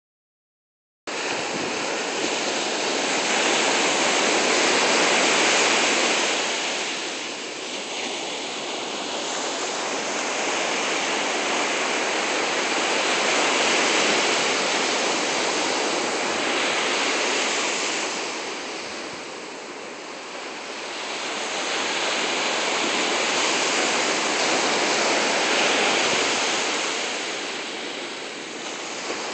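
Ocean surf breaking and washing up a sandy beach: a steady rush that swells and eases every several seconds, starting about a second in.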